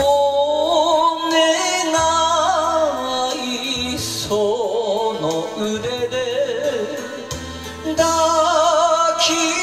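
A man singing an enka ballad into a microphone with wavering vibrato, over a karaoke backing track.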